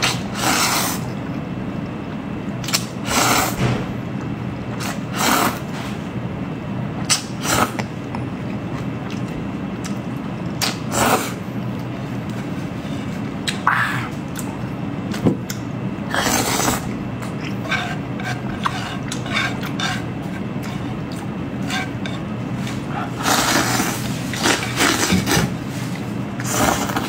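Close-up eating sounds: noodles slurped and food chewed in short, irregular bursts every few seconds, with a few sharp clicks of chopsticks on the plate, over a steady low hum.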